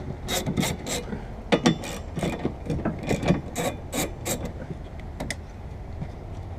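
Irregular sharp clicks and scrapes of hand work on the car's plastic trim and clips around the windshield, stopping about five seconds in.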